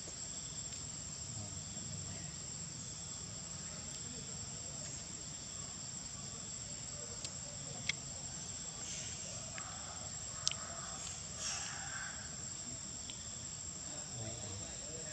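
Steady, high-pitched drone of insects chirring, with two sharp clicks a few seconds apart near the middle.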